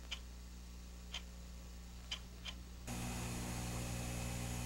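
Quartz analog clock ticking about once a second over a faint steady hum. About three seconds in, the ticking stops and a louder steady hum takes over.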